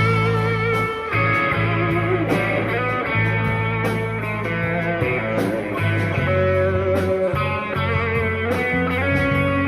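Electric guitar playing a lead line of held notes with wavering vibrato over a rock backing of bass and drums, a guitar tone test.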